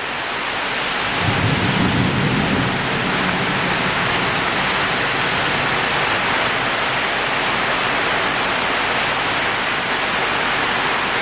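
Heavy tropical rain pouring down and drumming on corrugated metal roofs, a steady loud hiss. About a second in, a low rumble of thunder lasts a second or two.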